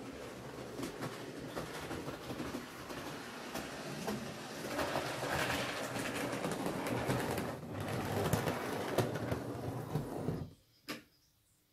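Model diesel locomotive running along the track, its motor and wheels making a steady rumble with small clicks over the rail joints and points. It grows louder as it nears, cuts off abruptly about ten and a half seconds in, and a single sharp click follows.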